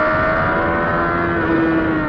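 Kawasaki sport motorcycle engine pulling hard at high revs, its pitch climbing slowly and then easing slightly near the end. Heard from on board with wind rush.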